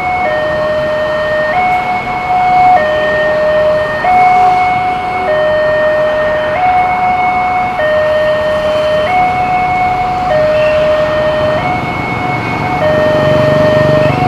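Railway level-crossing warning siren sounding normally, a steady two-tone signal that alternates between a lower and a higher pitch about every 1.2 seconds. Underneath is a constant wash of road-traffic noise, with a low rumble building near the end.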